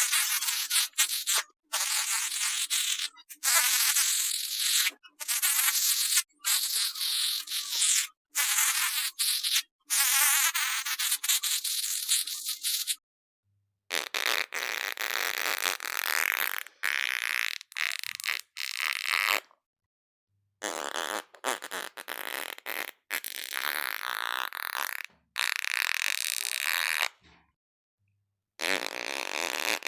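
A string of more than a dozen fart sounds, one after another, each about a second to three seconds long, with short silent gaps between them; most of them are high-pitched.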